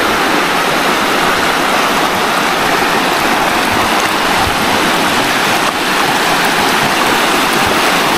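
River water rushing steadily down a long, smooth sloping rock face: a natural rock slide.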